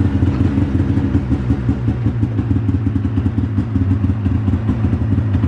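A 2011 Polaris Switchback Assault 800's two-stroke twin engine idling steadily through its stock exhaust, just after starting.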